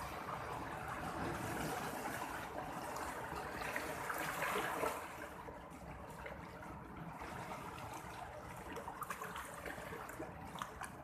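Sea water washing and lapping, louder and swelling for about the first five seconds, then dropping to a softer trickle with a few small splashes.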